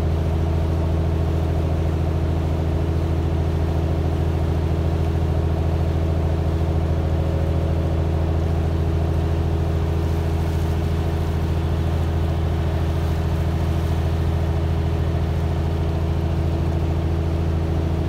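Boat engine running steadily, a constant low hum with no change in speed.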